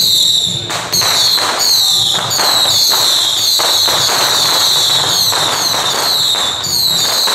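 Firecrackers going off in irregular sharp cracks. Over them a shrill whistle falls in pitch again and again, a little under twice a second.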